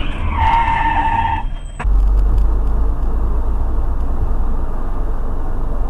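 Car driving, as heard through a dashcam: a steady low engine and road rumble. For about the first second and a half a high held tone sounds over it, then the sound breaks off abruptly and the even rumble resumes.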